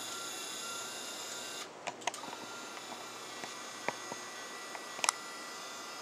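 Small electric motor of a remote-control window blind box running with a steady whine and stopping abruptly about a second and a half in, followed by scattered light clicks of the blind.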